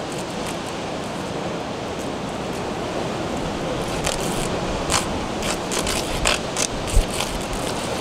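Steady hiss of nor'easter wind and blowing precipitation, with a scatter of sharp ticks that come more often in the second half.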